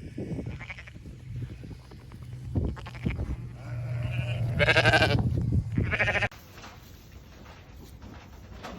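Sheep bleating several times, the loudest a long bleat about five seconds in, over a steady low hum that cuts off abruptly a little after six seconds.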